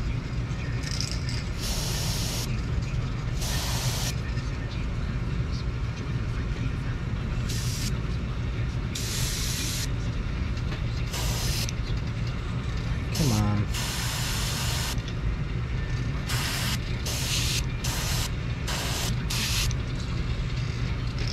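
Airbrush spraying paint through mesh netting onto a swimbait in a dozen or so short hisses, each under a second, spaced unevenly over a steady low hum.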